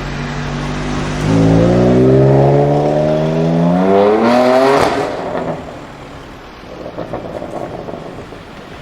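BMW M4 F82's twin-turbo straight-six with an Akrapovic exhaust, accelerating hard: the exhaust note climbs steadily in pitch for a few seconds, then cuts off suddenly as it lifts off. It fades away afterwards with a few short pops from the exhaust.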